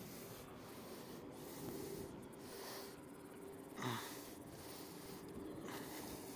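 Faint breathing of a person close to the microphone: a few short breaths, the loudest about four seconds in.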